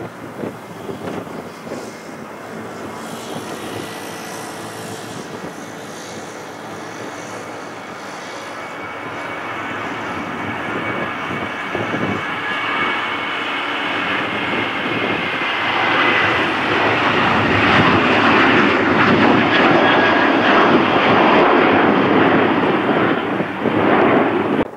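Boeing 737's twin CFM56 turbofan engines at takeoff thrust as the jet rolls, lifts off and climbs away. The jet noise builds steadily and is loudest in the last third, with a high fan whine that slides slightly lower in pitch.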